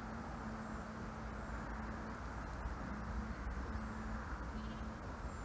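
Steady outdoor wind noise rumbling on the microphone, with a faint low hum that comes and goes.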